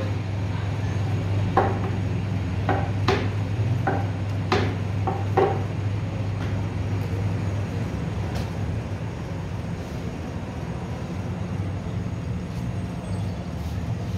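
Steady low mechanical hum, with a run of about seven short sharp knocks in the first half, then the hum alone.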